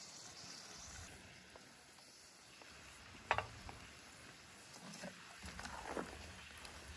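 A few faint clinks and scrapes of a metal spoon against an aluminium pan of chicken, with a sharper click a little after the middle, over a low steady hiss.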